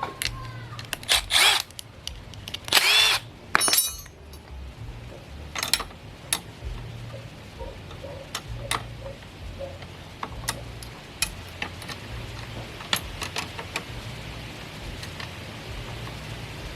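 A few short bursts of a cordless power driver in the first six seconds, one rising and falling in pitch, followed by scattered clicks and knocks of tools and metal seat-mechanism parts being handled.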